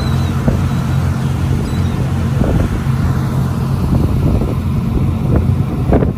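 Sightseeing boat's engine running steadily with a low drone, with wind buffeting the microphone in irregular gusts.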